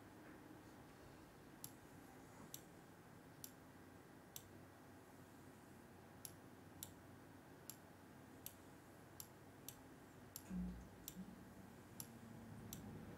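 Faint clicks at a computer, irregular and roughly one a second, over near silence, with a short low thump about ten and a half seconds in.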